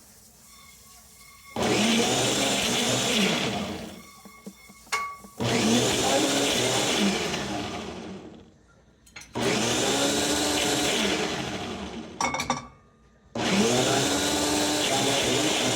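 Blender motor blending frozen mango with honey and water, run in four bursts of about three seconds each. Each burst winds down before the next starts, and the motor pitch wavers as it churns the frozen fruit.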